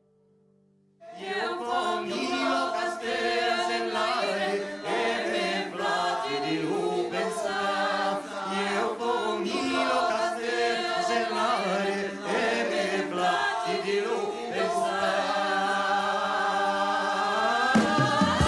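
Live band music with several voices singing together, starting abruptly about a second in.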